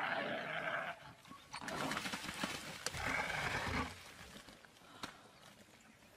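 Harsh animal cries in three bursts of about a second each over the first four seconds, from African wild dogs and the impala they are attacking.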